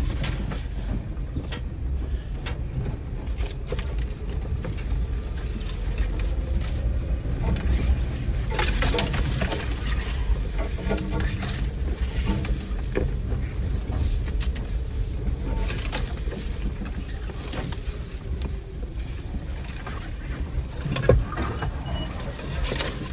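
Jeep driving slowly over a rough dirt trail: a steady low engine and drivetrain rumble with scattered knocks, rattles and scrapes, the loudest a sharp knock near the end.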